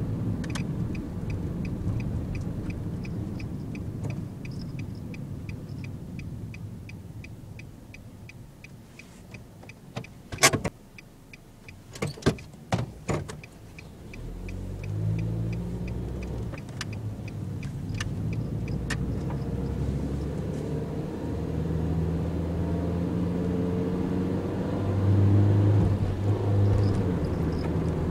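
Inside a Nissan NV200 van, the turn-signal indicator ticks steadily while the van slows and waits at a junction. A few sharp knocks come about halfway through. Then the engine picks up as the van pulls away and speeds up, and the ticking stops a few seconds later.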